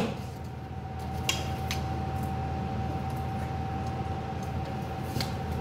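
Steady hum of a wall air-conditioning unit, with one faint steady whine over it. A few light clicks and taps sound about a second in and again near the end.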